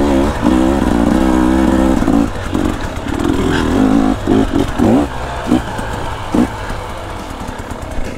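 Two-stroke dirt bike engine running at a steady pitch for about two seconds, then a string of short throttle blips with quick rises in pitch as the bike works up the trail, getting somewhat quieter toward the end.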